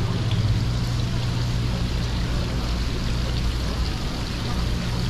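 Water running in the live-seafood tanks of street fish stalls, over a steady low hum of pumps and general street noise.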